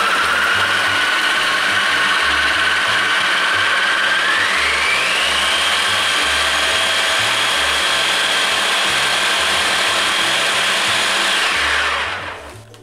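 Kenwood kitchen machine's food processor attachment running at speed, chopping boiled chestnuts and sugar into fine crumbs. Its motor whine steps up in pitch about four seconds in, holds steady, then winds down and stops near the end.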